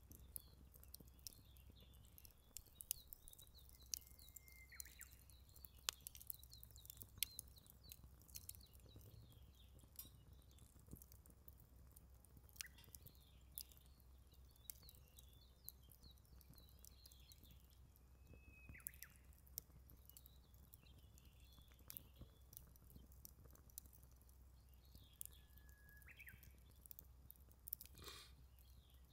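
Thin split firewood burning in a small stainless steel folding fire grill, crackling quietly with sharp irregular snaps. A bird gives a few short whistled calls in the background.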